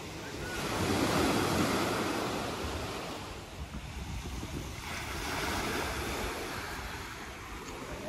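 Black Sea surf: waves washing onto the shore, swelling about a second in and again around five seconds.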